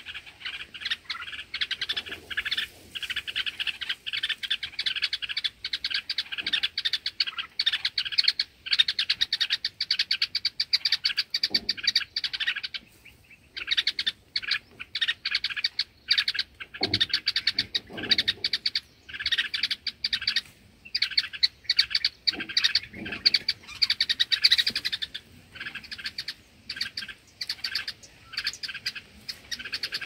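Bulbul alarm calls: rapid, repeated chirps in a near-continuous chatter, with a short pause about halfway through. They are given at a snake raiding its nest.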